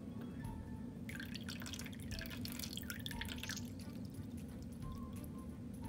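Plastic syringe squirting liquid drawn from a snow globe into a foam cup: a crackly, sputtering spurt and drips that start about a second in and last a couple of seconds, over a steady low hum.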